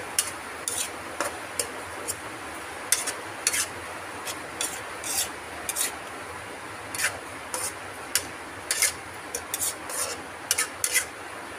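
Metal spatula scraping against a metal wok as chopped food is stirred and tossed, in repeated short, irregular scrapes about two a second.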